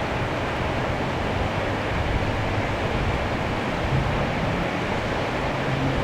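Fast-flowing floodwater rushing steadily, with a low engine hum underneath that comes up about four seconds in.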